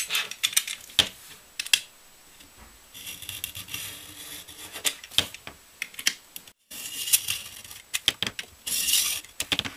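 Utility knife blade scraping and prying along the seam of a plastic laptop battery pack casing: many sharp clicks and taps of plastic, with longer scraping stretches in the middle and near the end. The sound cuts out for an instant just past halfway.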